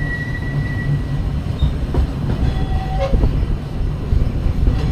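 Vintage narrow-gauge steam train running, heard from an open-sided passenger car: a steady low rumble of the coaches and wheels on the track, with a few sharp clicks about a second apart.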